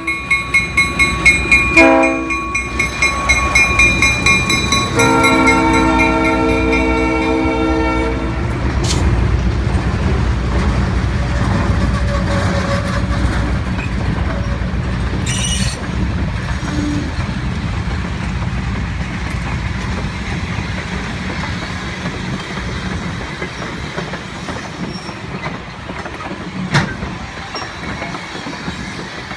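An EMD GP11 diesel locomotive passing close by. Its bell rings quickly for the first few seconds, and its horn gives a short blast about two seconds in and a longer one from about five to eight seconds. Then comes the low rumble of the engine and the wheel clatter of the freight cars and caboose rolling past, fading slowly, with a sharp clack near the end.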